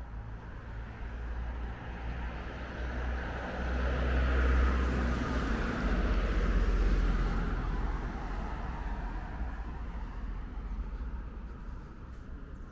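A car passing along the street, its tyre and engine noise swelling over a few seconds and fading away again, over a steady low rumble of traffic.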